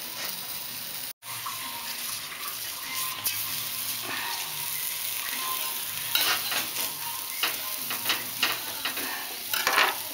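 Tomatoes and onion sizzling steadily as they char on a hot comal. A metal knife scrapes and taps against the comal several times in the second half as the vegetables are turned.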